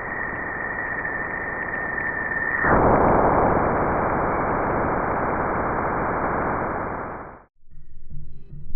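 Harsh radio-static hiss, a recording presented as a sound from space, with a steady high tone through the first few seconds. The static grows louder when the tone stops about three seconds in, then cuts off suddenly near the end.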